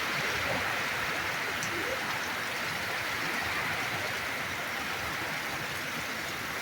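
Steady rain falling, a constant even hiss of drops.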